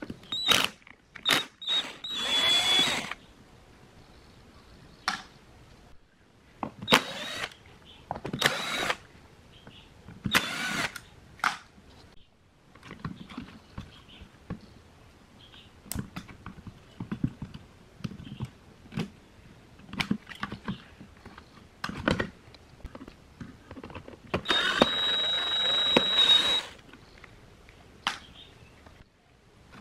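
Power drill running in short bursts, with a high whine that climbs as the motor spins up. Several quick runs a few seconds apart and one longer run of about two seconds near the end, with small knocks and clicks of handling in between.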